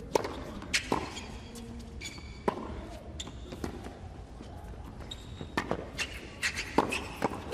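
Tennis rally on a hard court: a serve, then sharp pops of racquet strikes and ball bounces every half-second to a second, with brief squeaks of shoes on the court twice.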